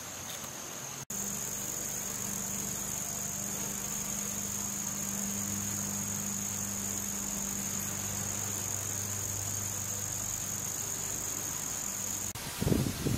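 Steady high-pitched chorus of crickets, with a low steady hum underneath. The sound drops out for an instant about a second in, and a few low thumps of wind on the microphone come near the end.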